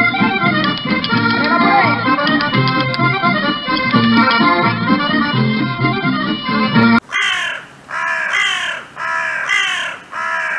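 Accordion music that cuts off suddenly about seven seconds in. A run of about five harsh crow caws follows, each roughly half a second long.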